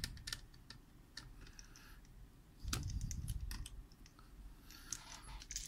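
Faint small clicks and ticks of a precision screwdriver turning the screws of a laptop heatsink-and-fan assembly down onto the motherboard, with a low rubbing noise for about a second near the middle.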